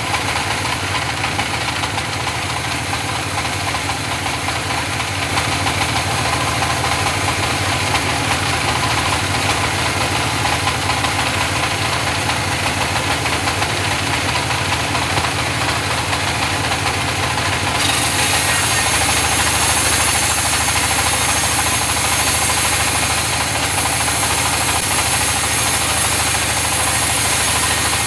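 Engine-driven wood saw running steadily while sawing mahogany, with a harsher hiss joining about eighteen seconds in.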